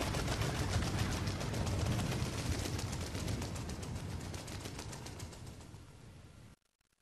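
Fireworks crackling and popping in a dense rapid patter, fading away gradually and then cutting off abruptly near the end.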